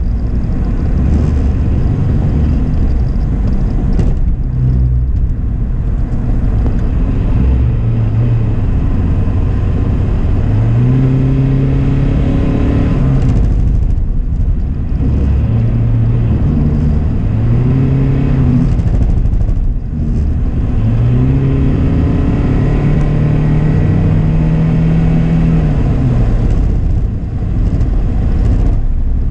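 Car engine and road noise heard from inside the cabin while driving. The engine note rises and falls several times as the car accelerates and eases off.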